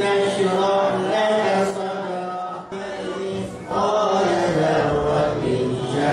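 Quran recitation: a voice chanting Arabic verses in long, held melodic phrases.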